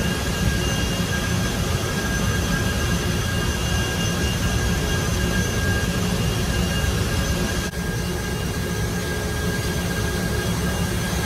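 Steady loud roar of power-plant machinery, heaviest in the low end, with several thin, steady whining tones over it.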